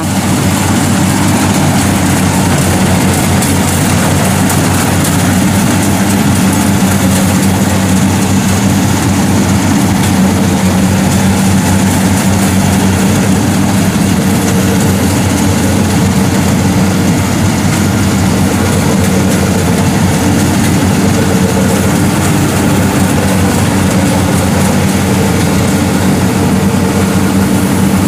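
Kubota PRO 75G combine harvester's 75-horsepower diesel engine running steadily and loudly as the tracked machine works through a wet, muddy rice paddy.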